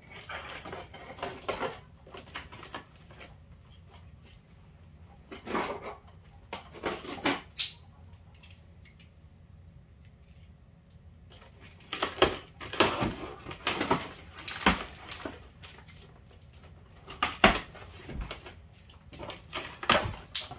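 Utility knife slicing through the packing tape on a cardboard box, in several short bursts of scraping and tearing with a quieter pause near the middle. Near the end a cardboard flap is pulled up as the cutting goes on.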